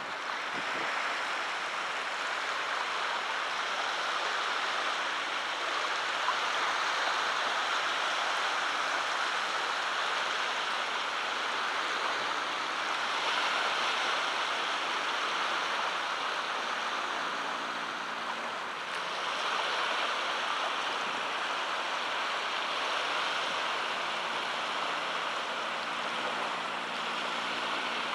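Small waves lapping on a sandy beach at low tide: a steady wash of water that swells a little a few times.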